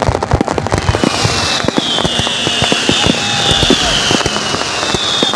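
Fireworks display: rapid crackling pops and bangs, with several high whistles falling in pitch over them from about a second in.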